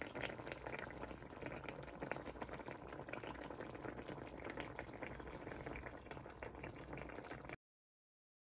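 Fish stew simmering in a pan: faint, steady bubbling with small pops, cutting off suddenly near the end.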